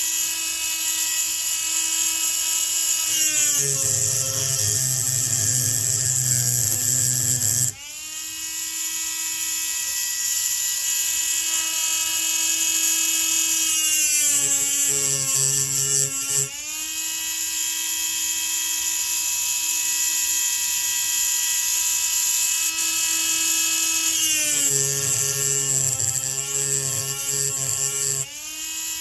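High-speed rotary tool grinding a chainsaw piston for port work. It runs with a steady high whine, and three times, for a few seconds each, its pitch sags under load while the bit grinds rough against the metal. Each time it springs back up as the bit comes off the work.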